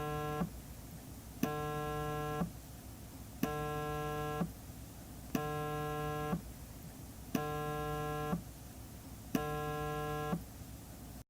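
Cell phone on vibrate buzzing in one-second pulses with about a second's pause between, a steady low buzz repeated six times.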